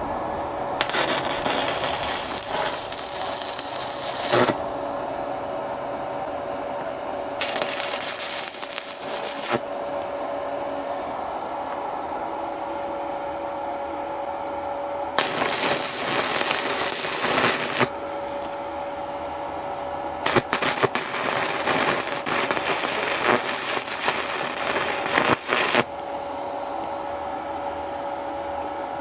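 Mini arc welder laying welds on a pressure washer's light sheet-steel wheel bracket: four bursts of crackling arc, the first a tack, the longest about five seconds near the end. A steady hum with a constant whine sounds between the bursts.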